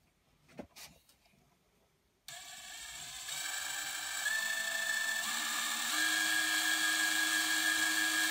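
A few light clicks, then about two seconds in a cordless drill starts up and runs with a steady whine, its bit drilling into a small sterling silver blank cut from a shilling. The whine shifts in pitch and grows a little louder a few times.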